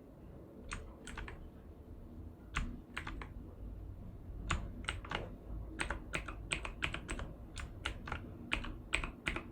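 Keys of a mechanical keyboard with clicky Outemu blue switches being pressed: a few separate clicks at first, then a quicker run of key presses about three to four a second from about six seconds in.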